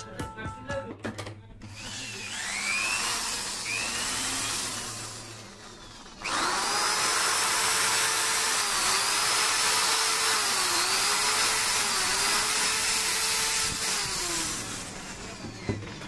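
White Dove 10 mm electric hand drill running on test after its switch repair. It spins up with a rising whine for a few seconds, and from about six seconds in runs steadily for about eight seconds, its pitch dipping briefly a few times, before winding down near the end. A few small clicks come at the start.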